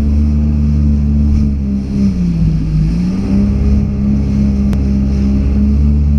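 Yamaha SuperJet stand-up jet ski's two-stroke twin engine running hard at high revs, its pitch dipping briefly about two and a half seconds in and rising back.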